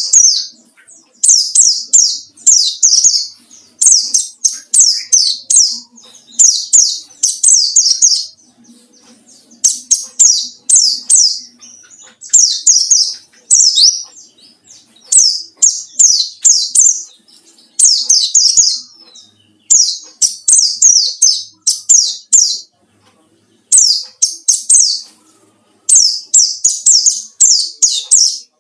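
Pleci (white-eye) singing a wild-style challenge song aimed at a rival: quick runs of high, falling chirps in phrases of one to two seconds, repeated with short pauses.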